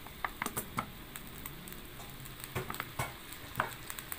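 A metal spatula scraping and clicking against a wok as it stirs a sizzling onion sauce. A cluster of sharp clicks comes in the first second and a few more come around three seconds in, over a faint steady sizzle.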